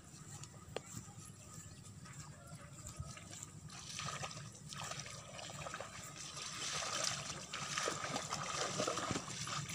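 Footsteps on wet grass, then people wading through the shallow water of a flooded rice paddy, sloshing and splashing, louder in the second half.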